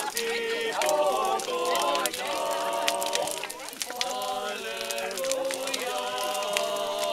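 A group of people singing together in held notes, with sharp crackles and pops from a large bonfire of burning wooden pallets.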